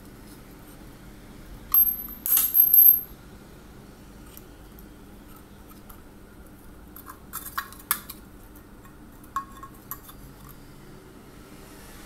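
Metal clinking and rattling from an opened car inverter's aluminium case and circuit board being handled: a sharp clatter with a brief high ring about two seconds in, then a few softer clicks later on.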